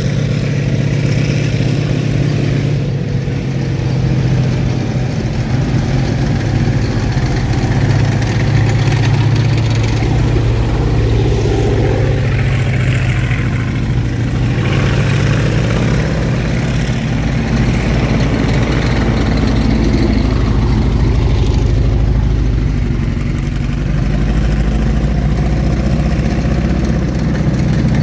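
Engines of WWII-era military vehicles running as a convoy passes, a continuous low engine drone with slow shifts in pitch.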